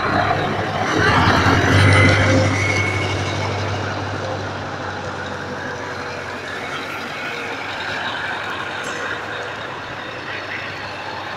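Scania trucks' diesel engines running as they drive past one after another, loudest about one to three seconds in as a truck passes close, then quieter and steady.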